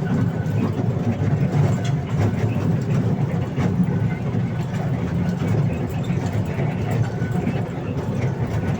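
Park toy train running, heard from on board: a steady low rumble with scattered faint clicks.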